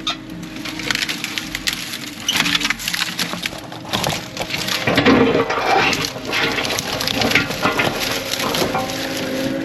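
Brush and branches cracking, snapping and splintering as heavy machinery crushes and tears them out, with the machine's diesel engine running steadily underneath.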